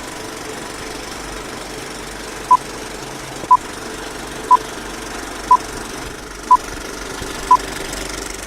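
Countdown beeps: six short beeps of one pitch, one a second apart, over a steady noisy hum, then a single higher-pitched beep at the end, like a film-leader countdown intro.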